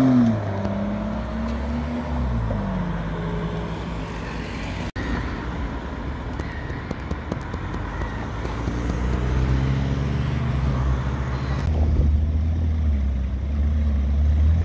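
Supercar engines in three passing clips. An Aston Martin DBS's V12 pulls away, its note falling over the first two seconds or so. After a cut, an Alpine A110 drives by with its engine note rising. Near the end, a Ferrari California's V8 runs low and steady.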